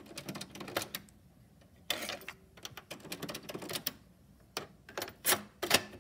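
Sharp plastic clicks and clacks from a Panasonic dual-cassette boombox being worked by hand: buttons pressed and the deck 2 cassette door ejecting open, in scattered bursts with short pauses between them.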